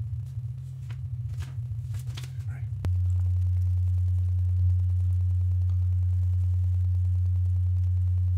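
A steady low-pitched hum that comes on suddenly about three seconds in, after a few faint clicks over a low rumble.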